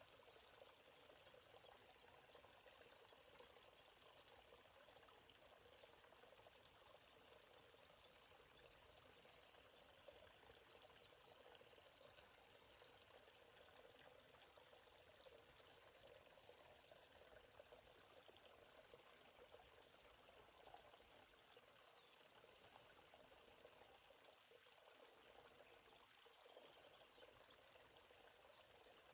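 Insects trilling steadily at a high pitch over the soft babbling of a forest stream.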